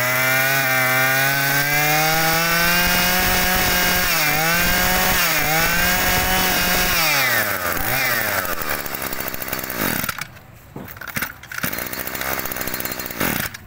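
Hitachi Koki CG23ECP two-stroke brush-cutter engine running on its own. Its pitch climbs as it revs up and dips briefly twice around the middle. Then it runs down and dies away about ten seconds in.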